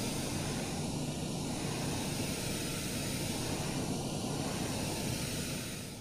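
Steady hiss of test noise played through two studio monitor speakers and picked up by a single microphone moved between them. Its tone shifts slowly, with dips in the middle range twice, as comb-filtering notches move with the changing distances from the microphone to the two speakers.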